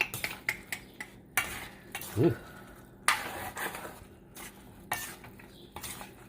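A utensil stirring and scraping pork, black beans and tofu in a pan, with irregular clinks against the pan over a light sizzle as the sauce simmers down. A short low hum about two seconds in.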